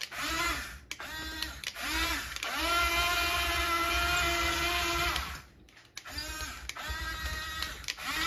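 Small electric motors of a Diecast Masters 1:24 RC Cat 336 excavator whining as the boom and arm move. It runs in short start-stop bursts, with one steady run of about three seconds in the middle, and the pitch rises as a motor spins up and falls as it stops.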